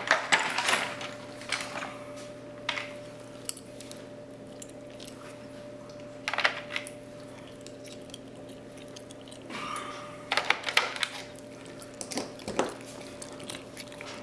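Small metallic clicks and clinks from a picked padlock and its tools being handled while it is taken apart. A cluster comes near the start, then single clinks or small groups every few seconds, over a steady low hum.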